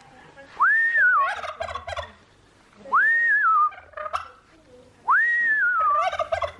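Domestic fowl calling three times, about two seconds apart. Each call is a clear whistle that swoops up and wavers back down, followed straight away by a rapid gobbling rattle.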